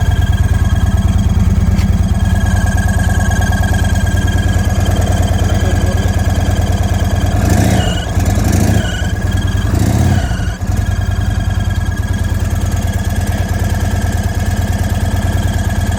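Indian Sport Chief's Thunderstroke 116 V-twin idling with a steady high-pitched whine riding over the engine beat, with two short surges of louder sound around the middle. The whine comes from an air leak at an off-centre, badly seated intake.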